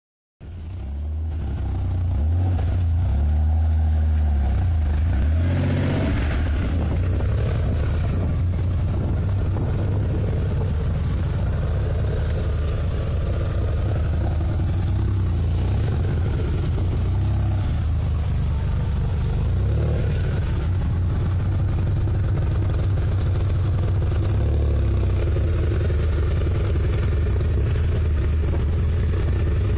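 Porsche 930 Turbo's air-cooled turbocharged flat-six running at low engine speed, a steady low exhaust note through the tailpipe. Its pitch wavers a little in the first few seconds, then it runs evenly.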